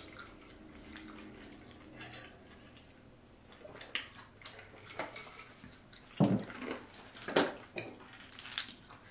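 Clam shells clicking as they are picked through on a seafood-boil platter, with a few louder sharp shell clacks in the second half, and quiet liquid sounds of sipping from a cup.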